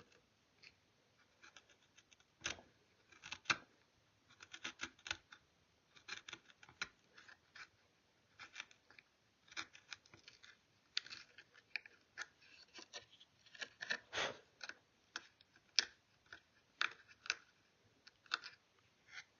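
Knife blade paring wood from a rifle stock: short scraping cuts in irregular runs, some sharper and louder than others.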